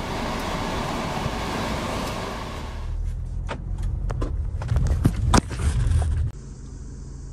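Car on the move: about three seconds of even engine and tyre noise, then low road rumble heard inside the cabin with a string of knocks and rattles, easing a little near the end.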